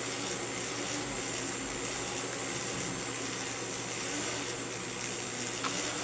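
Small electric propeller motors of a fischertechnik monorail running steadily, a whirring with a thin high whine over it. A single click near the end.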